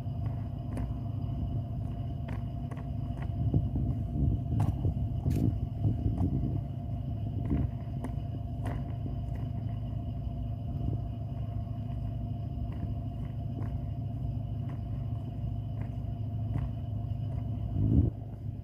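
Suitcase wheels rolling over a hard surface: a continuous low rumble with scattered sharp clicks, and a brief louder jolt near the end.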